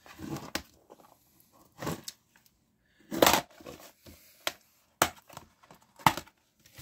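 A plastic DVD case being handled and opened: a run of separate rustles, clicks and knocks, the loudest about three seconds in.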